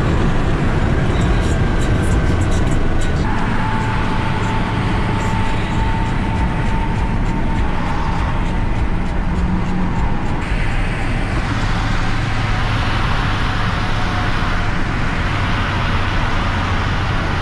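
Car engine and road noise at highway speed, heard from inside the cabin. It runs steadily, with a thin whine from a few seconds in, and turns hissier about ten seconds in.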